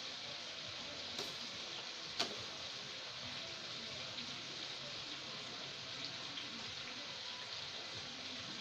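Steady hiss of a pot of soup simmering on the stove, with a metal ladle clicking against the pot twice, about one and two seconds in, the second click the louder.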